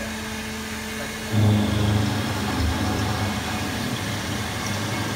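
CNC milling machine running: a steady motor hum that, about a second in, jumps to a louder, rougher machine noise, which then holds steady.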